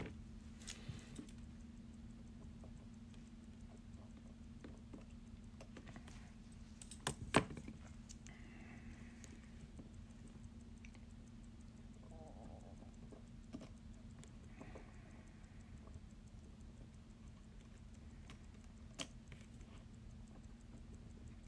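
Watchmaker's tools on a small mechanical watch movement while a bridge is worked loose: faint scattered metal clicks and taps, a sharp double click about seven seconds in and single clicks later, over a steady low hum.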